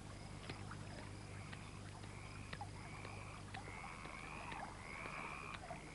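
Faint background nature sound effect: a row of short, high calls repeating about every half second, with a few soft clicks over tape hiss and a low hum.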